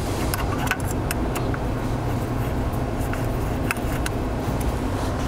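Steady low machine rumble with a faint hum, overlaid by scattered light metallic clicks as a T-handle hex key turns socket head cap screws into a steel punch guide assembly.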